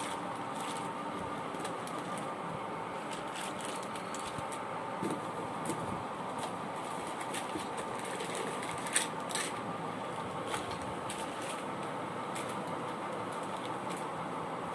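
A steady mechanical hum with scattered light clicks and rustles, and one sharper click about nine seconds in.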